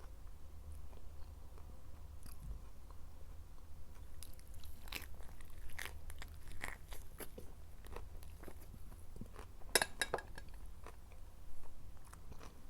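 Close-miked biting and chewing of crisp lettuce-leaf tacos stuffed with eggplant moussaka. There is a run of wet crunches about five seconds in and the loudest crunching near ten seconds, over a steady low hum.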